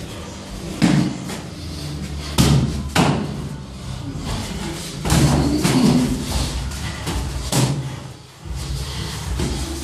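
Punches and kicks landing during kickboxing sparring: boxing gloves and shins smacking on bodies and gloves in a string of sharp thuds at irregular intervals. The loudest hits come about a second in and between two and a half and three seconds in, with a cluster a little after five seconds.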